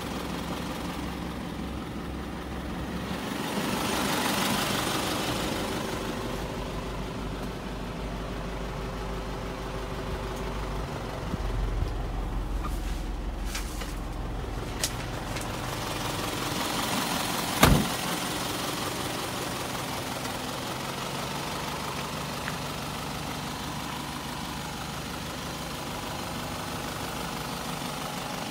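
Isuzu Elf light truck's engine idling steadily, with one sharp knock about two-thirds of the way through.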